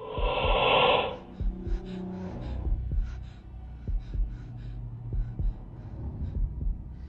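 Horror-film sound design: a sharp, breathy gasp in the first second, then a low heartbeat effect of repeating thuds over a dull hum, building tension.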